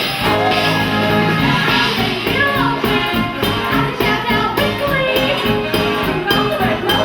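Christmas show music over a stage sound system: a singer's voice over an upbeat band accompaniment with a steady beat.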